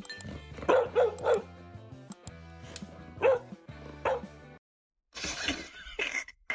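A dog barking over background music: three quick barks about a second in, then two more a few seconds later.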